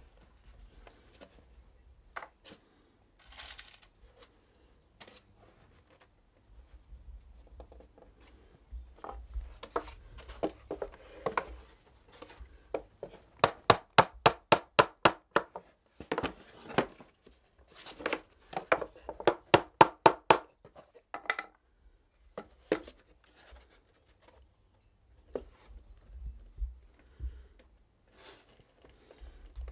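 Small hammer driving nails into a trug's wooden stand: two quick runs of about ten light, even blows at about four a second, then a single harder blow, among scattered knocks and rubbing as the wooden basket is handled.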